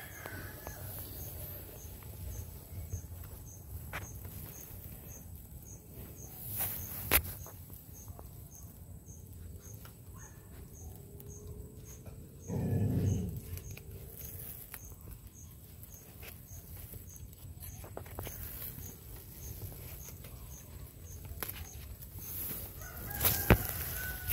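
Rural outdoor ambience: a faint high chirp repeating about twice a second throughout, a few sharp knocks, and one louder animal call of about a second roughly halfway through.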